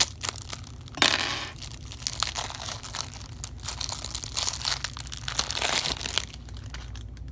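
Cellophane shrink-wrap on a deck of cards crinkling and tearing as it is peeled open: a run of sharp crackles, with a louder burst about a second in, dying down near the end.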